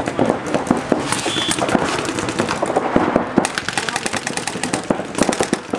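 Paintball markers firing rapid strings of shots, several guns overlapping into dense, irregular popping that grows heavier about three and a half seconds in.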